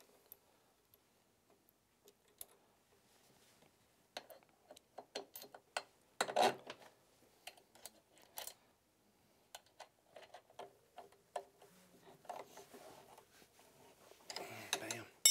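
Hand tools on snowmobile front suspension bolts: a ratchet wrench clicking and metal parts clinking as the A-arm, spindle and sway bar link hardware is fitted and tightened. The clicks come in scattered, irregular runs starting about four seconds in, with a few louder knocks and a louder burst of handling near the end.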